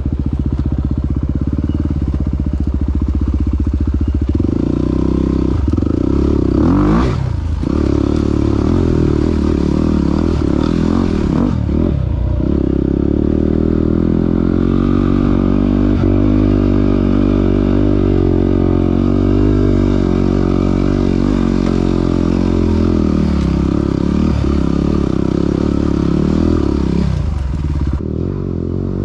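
Yamaha WR250R's single-cylinder four-stroke engine running under way, its pitch rising and falling with the throttle. It drops off briefly a few times, most sharply about seven seconds in and again about twelve seconds in.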